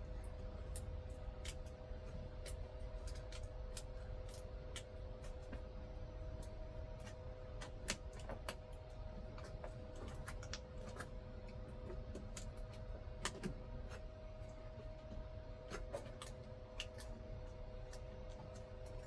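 Irregular light clicks and crackles of hands working small pieces of sealing material into the corners of an RV rooftop air-conditioner, over a steady hum.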